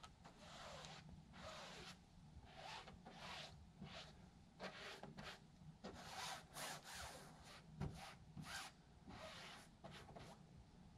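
Paintbrush working adhesive into a light fabric doily laid over an aluminum inspection-hole ring on a fabric-covered wing: faint, irregular swishing brush strokes, one after another.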